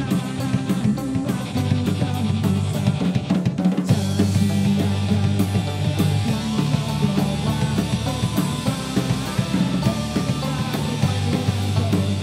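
Celtic punk band playing live: a drum kit keeps a steady beat under acoustic guitar and a sung lead vocal. There is a brief drop just under four seconds in, then the full band carries on.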